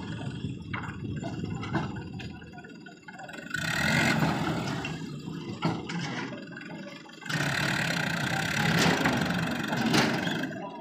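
Mahindra 595 tractor's diesel engine running, revving up twice in surges of a few seconds each while the raised hydraulic tipper trolley unloads sand and the tractor pulls forward, with a few sharp knocks in between.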